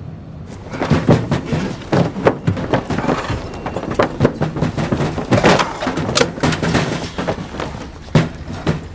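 A quick run of thumps and metal bangs: footsteps and knocks on the sheet-metal roofs of scrapped cars as men clamber across them.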